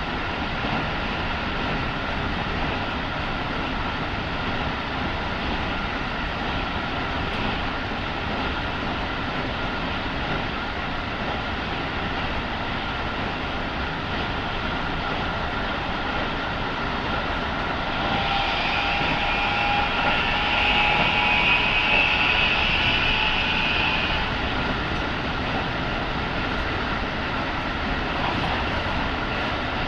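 Running sound heard aboard a Keikyu 1000 series electric train at speed: a steady rumble of wheels on rail with a constant whine. For about six seconds, roughly two-thirds of the way in, a louder shrill squeal joins it, then fades.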